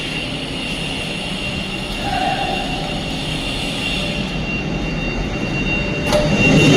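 Steady mechanical rumble of running machinery with a continuous high-pitched tone over it; a short click about six seconds in, after which it gets louder.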